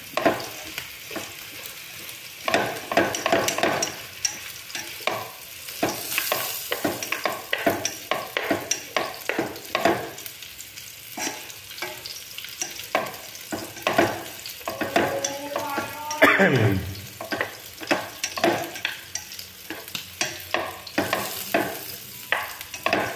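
Wooden chopsticks stir and toss bean sprouts and pork in an aluminium pot over a gas flame. The food sizzles while the chopsticks knock and scrape against the pot in irregular clacks. About sixteen seconds in there is a brief falling squeak.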